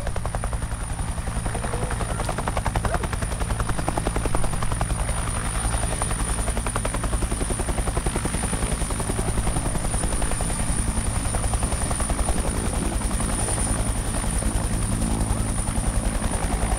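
Helicopter overhead: a steady, rapid rotor chop with a constant high whine above it.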